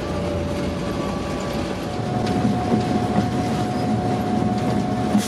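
EMD GP9 diesel locomotive heard from inside its cab while under way: its 16-cylinder 567 engine runs steadily, with wheel-on-rail noise and a thin steady whine that steps up in pitch about two seconds in. A single knock sounds near the end.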